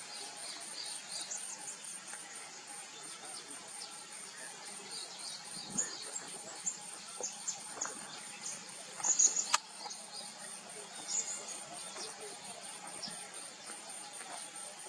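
Short, thin, high-pitched chirps of vernal hanging parrots, scattered and briefly clustering about two-thirds of the way through, over a steady, evenly pulsing insect trill. There is one sharp click among the loudest chirps.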